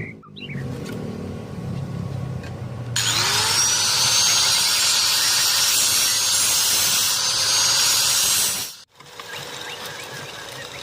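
Angle grinder on metal: a quieter stretch, then about three seconds in the motor whines up to speed and runs loudly on the steel for several seconds before cutting off abruptly.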